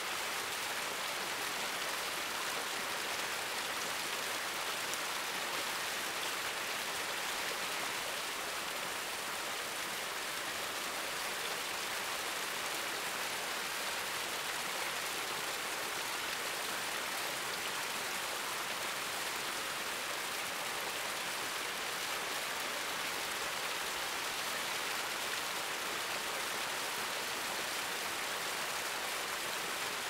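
Medium-sized waterfall: water falling and splashing without a break, a steady hiss with little deep rumble.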